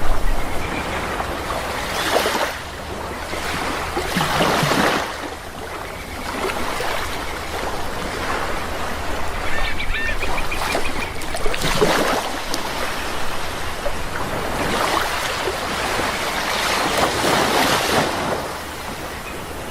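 Sea waves washing in and breaking, surging louder every few seconds, with a few short bird calls about ten seconds in.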